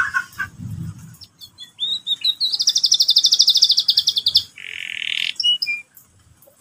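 Domestic canary singing: a short trill, then a fast, high rolling trill lasting about two seconds, a harsh buzzy phrase and a few short chirps.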